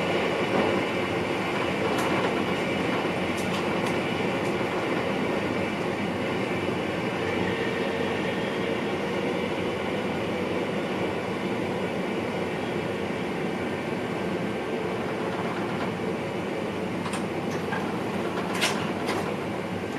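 VIRM double-deck electric train running along the track, heard from inside the driver's cab: a steady rumble of wheels on rails, with a few sharp clicks, mostly near the end.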